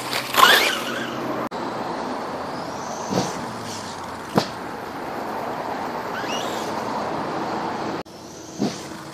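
Small RC truck's brushless electric motor whining, rising and falling in pitch as it is driven, over a steady rushing noise. Sharp knocks come about half a second, three seconds and four and a half seconds in.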